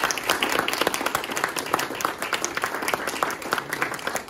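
A small audience applauding, with many quick hand claps in a small room.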